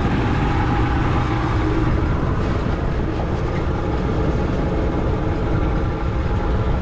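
Boat engine running steadily under way, with a dense, even drone.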